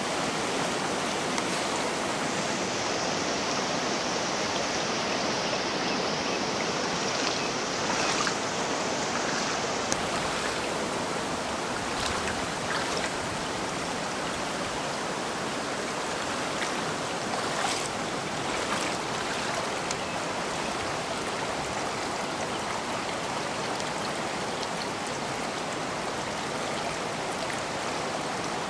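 Rushing floodwater: a steady rush of muddy water flowing over a flooded path and paddock.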